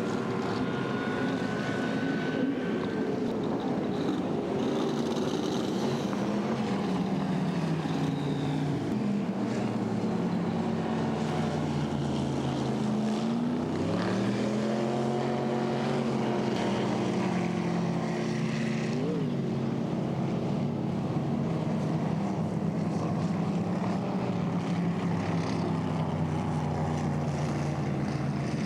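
Inboard racing boat engine running at speed. Its pitch falls, dips and then climbs again about halfway through as the throttle is eased off and opened back up, with a short blip of revs a little later.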